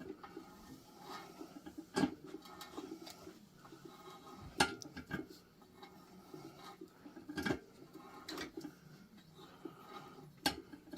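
A hand tap being worked through a through-hole in an engine block, giving scattered sharp metallic clicks and clinks every second or two over a faint scraping.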